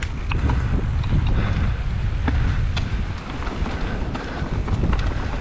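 Wind buffeting the microphone during a mountain bike ride on a dirt trail, over tyres rolling on the ground and scattered sharp clicks and rattles from the bike.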